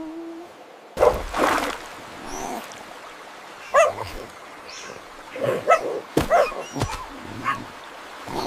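Several short, high animal yelps and whimpering cries, with a brief burst of noise about a second in.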